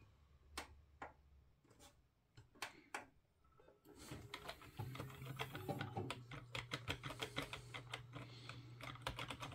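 A few scattered clicks, then about four seconds in a desktop PC starts up with a low fan hum while a keyboard key is tapped rapidly and over and over, several times a second, to get into the BIOS during boot.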